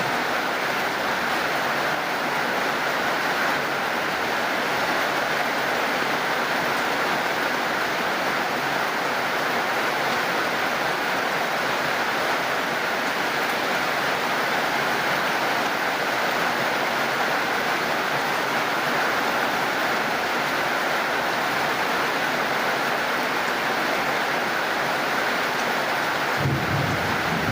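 Steady heavy rain falling, an even hiss with no break. Near the end a low rumble comes in underneath.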